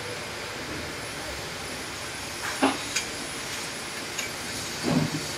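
Aluminium scaffold tower parts knocking and clinking a few separate times as the tower is put together, over a steady background hiss.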